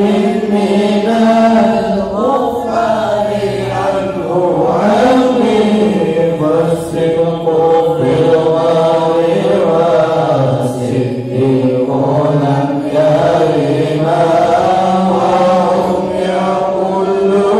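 A congregation chanting Arabic devotional verses together in a slow, unbroken melodic chant, the melody gliding up and down.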